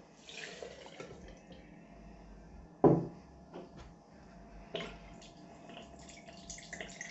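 Vodka pouring quietly from a measuring cup into a glass jar of orange peels, then one knock about three seconds in as the cup is set down on the table. A few light clicks follow, and near the end vodka trickles faintly from a bottle into the measuring cup.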